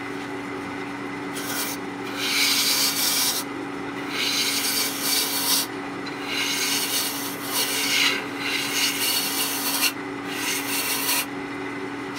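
JET wood lathe running with a steady hum while a turning tool cuts the spinning oak bowl blank in repeated passes, each a scraping rasp of one to two seconds, about six in all.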